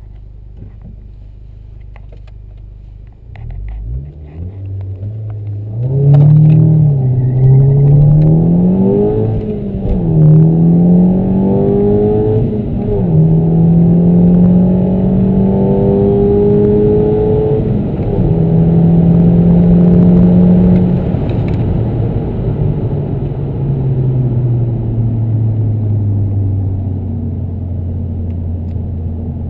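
Volkswagen Golf Mk5 GTI's turbocharged 2.0-litre four-cylinder through an ABT quad-pipe exhaust, heard from inside the cabin. It idles, then accelerates hard through the gears, the engine note climbing and dropping at three upshifts. Later it falls away slowly as the car slows.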